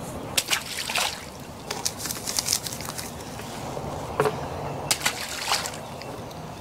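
Pond water sloshing and splashing, with irregular sharp knocks of footsteps on the wooden dock boards.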